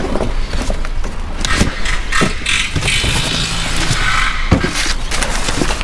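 Cardboard boxes being pulled from a van and thrown into a cardboard recycling skip: scraping and several dull thuds, the strongest about a second and a half in and again near the end. A steady low vehicle rumble runs underneath.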